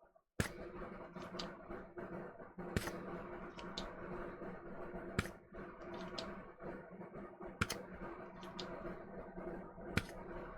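Spring-loaded solder sucker (desoldering pump) snapping sharply each time it is fired, about every two and a half seconds, with fainter clicks between as it is handled and re-cocked, over a steady hum.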